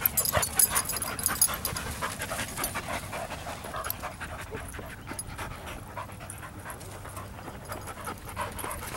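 Dogs panting as they play, with many short clicks and scuffs, busiest in the first couple of seconds.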